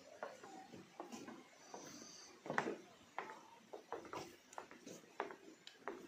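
Footsteps, about one to two a second, with one louder step about two and a half seconds in. A brief high chirp sounds near two seconds.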